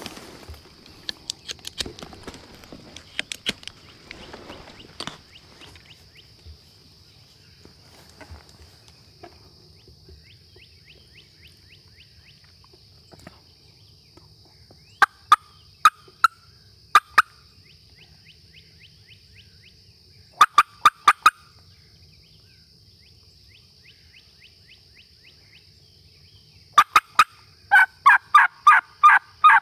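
Hen turkey yelps run on a turkey call close by, in three series of short, evenly spaced notes: about five, then four, then a longer run of about nine near the end. Brush rustles and clicks in the first few seconds as the hunters settle against a tree.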